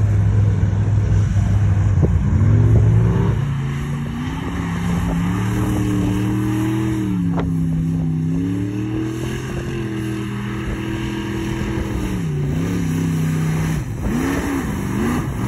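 Jeep engine running under changing throttle, its pitch climbing about two seconds in, then dipping and rising again several times as it revs and eases off.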